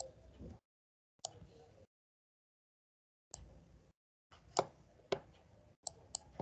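Faint, sharp clicks of a computer mouse, about seven of them scattered irregularly, with dead silence between them.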